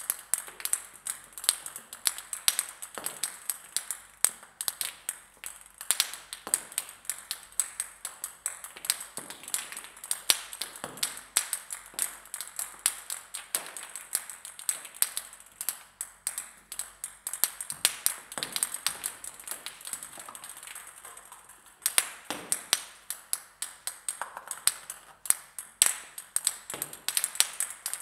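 Table-tennis balls bouncing on the floor, many at once, making a quick, irregular patter of sharp pinging taps that thins out briefly about three-quarters of the way through.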